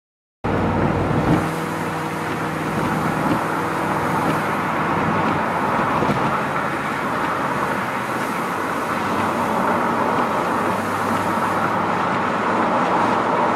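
Steady road noise inside a moving car: tyre and engine noise that starts abruptly about half a second in, with a faint engine hum low down early on.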